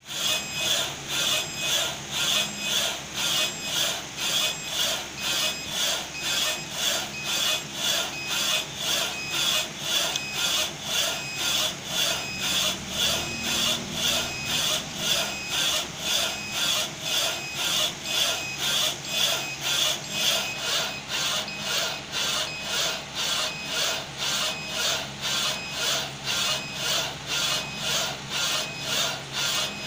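Rotary cylinder printer for round items running, with a steady rhythmic rubbing swish about twice a second and a faint high tone under it.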